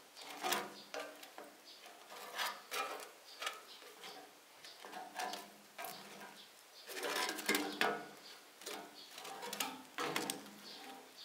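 Baguette slices being turned and lifted on a charcoal grill's metal grate: light taps, scrapes and rustles. Short pitched calls, like birds, come and go throughout.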